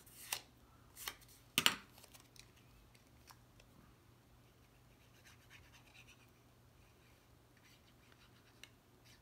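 Cut cardstock pieces being handled and curved by hand: a few sharp paper rustles in the first two seconds, the loudest about a second and a half in, then faint rubbing and scratching of paper.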